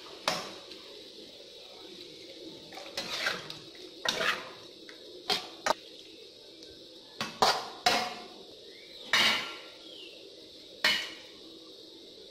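A metal spoon knocking and scraping against an aluminium wok while pork and ginger are stirred: about ten separate clinks and scrapes, unevenly spaced. Near the end, an aluminium lid is set down on the wok.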